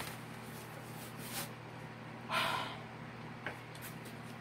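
A short, sharp exhale through the nose about two seconds in, amid soft rustling of a canvas being smoothed flat by hand. A steady low hum runs underneath.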